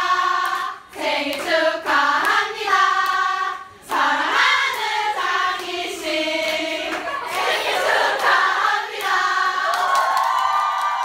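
A group of voices singing together without instruments, ending on a long held note that falls away near the end.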